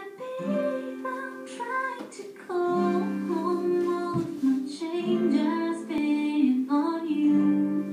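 Pop song playing: a voice singing a melody of held notes over strummed guitar chords.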